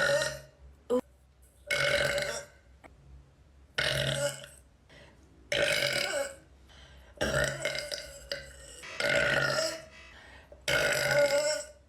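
A young woman belching loudly over and over: a series of about six or seven separate burps, each under a second long, with short pauses between them.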